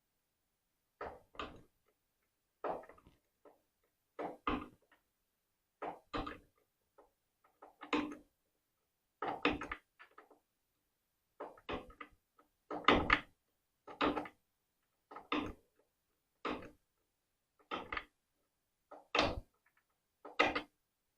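Ratchet wrench loosening the carburetor mounting bolts: short bursts of clicking about once every second or so as each stroke is swung back.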